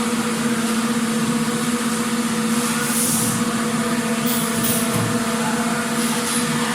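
Factory machinery running steadily: a constant droning hum over a bed of mechanical noise, with a few brief hisses and a low knock partway through.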